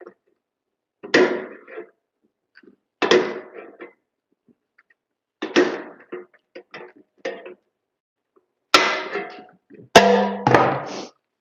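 A series of sharp metallic clanks and scrapes of sheet metal being worked with hand tools, each ringing briefly, a second or two apart, the loudest two near the end.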